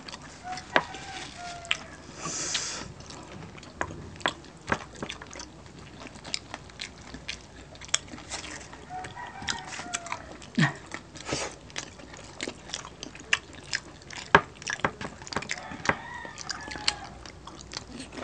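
Mouth sounds of two people eating crispy lechon belly with their hands: chewing and biting with many scattered sharp crunches and smacks.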